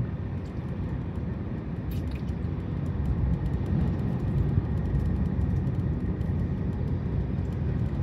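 Steady low rumble of a car driving along, road and engine noise heard from inside the cabin, slowly growing a little louder, with a small click about two seconds in.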